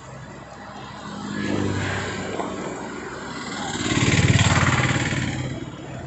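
Engine noise swells and fades twice, a smaller rise about a second and a half in and a louder one around four seconds in, over a steady low engine hum.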